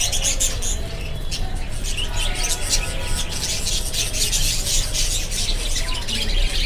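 Budgerigars chattering and warbling in rapid, high twittering notes, over a steady low hum.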